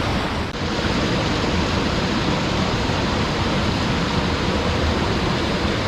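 Tall waterfall pouring down, a loud, steady rush of falling water, with a brief dip about half a second in.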